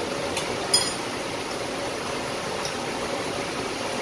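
Steady rumble of a commercial kitchen range-hood extractor fan. Sharp metallic clinks of a steel ladle against the bowls come twice in the first second, the second one loud and ringing.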